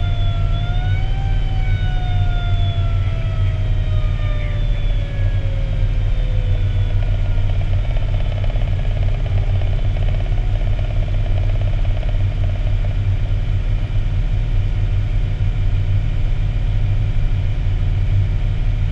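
Fire engine's engine and road noise droning steadily inside the cab. A siren rises in pitch near the start, then winds slowly down over the next several seconds and fades out.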